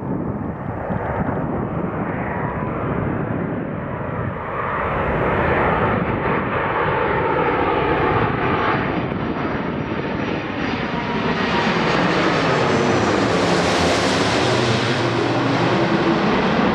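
Airbus A330-300 twin-engine jet airliner on landing approach, passing low overhead with its landing gear down. The jet noise grows louder as it nears, with a swishing sweep in its tone. It is loudest and brightest in the last few seconds as it goes over.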